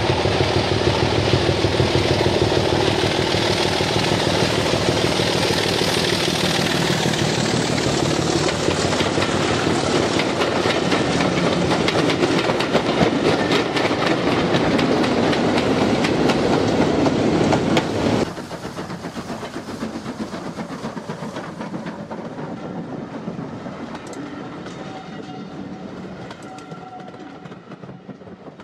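Model train running past close by: its wheels click rapidly over the rail joints over a steady hum. The sound drops suddenly about two-thirds of the way through, then fades away.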